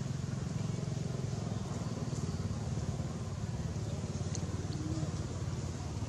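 A steady, low engine rumble with a fast, even pulse, like a motor idling, with a few faint ticks over it.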